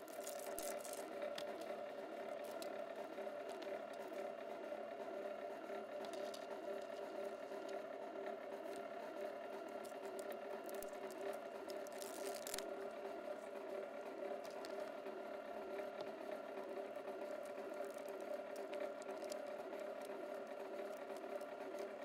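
The 1 HP electric motor and gear drive of a BLUEROCK MWS-808PMO motorized wire stripper running steadily with a constant whine, with scattered short clicks and rattles as stranded copper wire is fed through its cutting and feed rollers.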